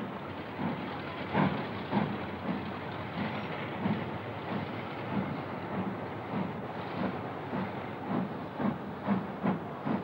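LMS Black 5 4-6-0 steam locomotive pulling away with its train, its exhaust beating in a steady chuff of about two beats a second that quickens slightly as it gathers speed.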